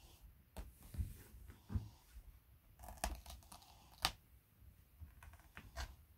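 Cat pawing and rubbing against a sisal scratching pad and a fabric cat tunnel: an irregular run of short scratches, rustles and clicks, the sharpest about a second in and just after four seconds.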